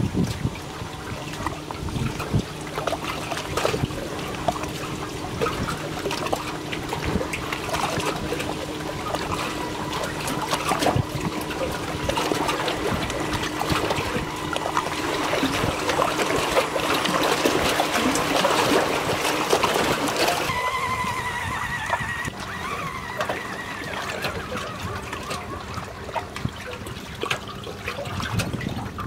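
Lake water lapping and trickling against rocks and a wooden dock, with a steady hum from a 1/10-scale RC rock crawler's electric motor. The hum changes to a higher, wavering whine about two-thirds of the way through.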